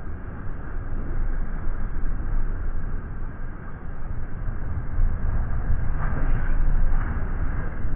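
Sportfishing boat under way: a steady low rumble of the engines mixed with water churning around the stern and wind noise.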